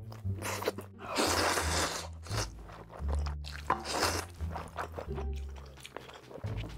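Close-miked eating sounds: a person biting and chewing food in big mouthfuls, with one long noisy stretch about a second in, over background music with a low bass line.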